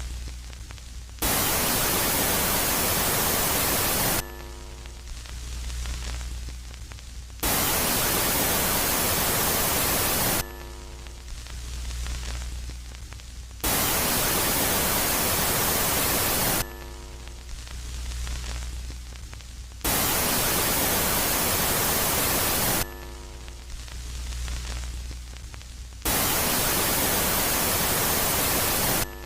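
Electronic 'space sound' of Jupiter's moon Megaclite, alternating steadily between a quiet phase of low hum with faint held tones and a loud phase of harsh static hiss. Each phase lasts about three seconds, giving five bursts of static in a regular cycle.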